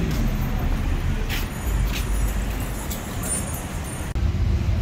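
Low vehicle rumble with two brief hisses between one and two seconds in; a steadier low hum comes in near the end.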